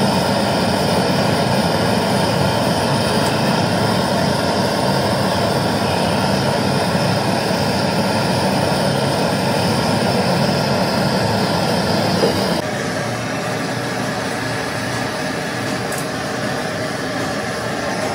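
Steady, loud mechanical droning noise that drops a little in level about two-thirds of the way through.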